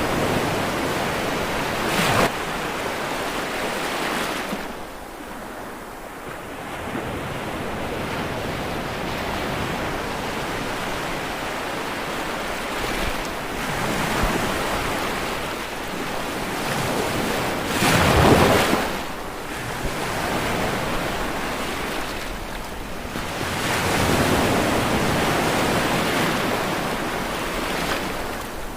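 Sea waves breaking and washing up the shore, a steady rushing that swells and fades in slow surges, with a louder wave crashing about two seconds in and the loudest one about eighteen seconds in.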